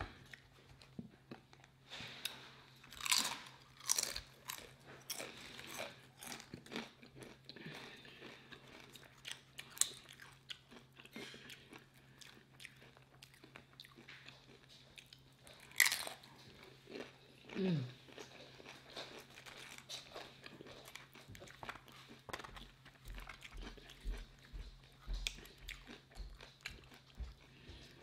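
Close-up crunching and chewing of tortilla chips: irregular crisp bites and chews, the loudest a few seconds in and again about halfway, over a steady low hum. Soft low thumps come in the last few seconds.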